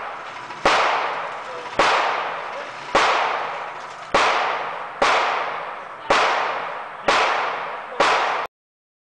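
Eight gunshots at an indoor shooting range, about one a second, each echoing off the range walls as it fades. The sound cuts off abruptly shortly before the end.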